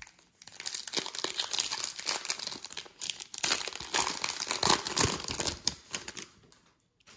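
Foil wrapper of a hockey card pack crinkling and crackling for about six seconds as it is torn open and the cards are pulled out.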